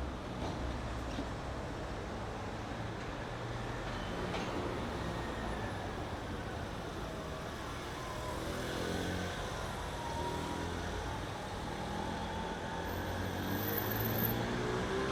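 City street traffic: motor vehicles running and passing steadily, with one vehicle's engine coming up louder in the last few seconds.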